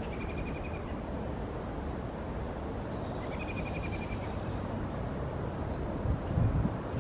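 Red-winged blackbird singing twice, each song a short buzzy trill, over a steady low outdoor rumble. Wind buffets the microphone near the end.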